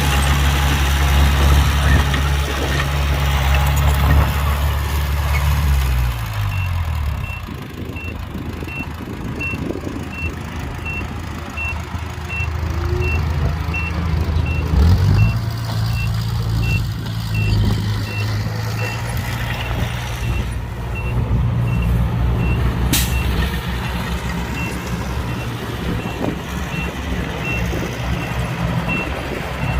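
Heavy construction vehicle's diesel engine running hard, its pitch dropping about six seconds in, then a reversing alarm beeping steadily about once every 0.7 seconds over the engine as the machine backs up.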